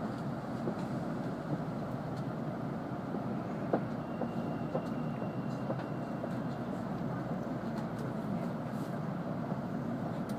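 Steady running noise of an N700-series Shinkansen train, heard from inside the passenger car, with a few faint clicks.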